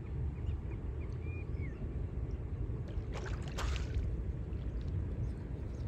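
Lake water splashing and sloshing around people wading neck-deep, with a louder splash a little past halfway, over a steady low rumble. A few faint bird chirps about a second in.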